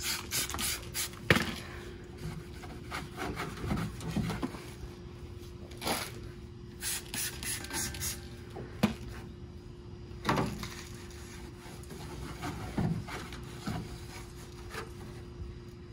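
A microfiber towel rubbing and wiping across a painted steel truck panel, with short squirts from a spray bottle of cleaner in between, in irregular strokes.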